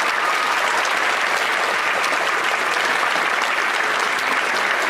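A large audience clapping steadily, a sustained round of applause.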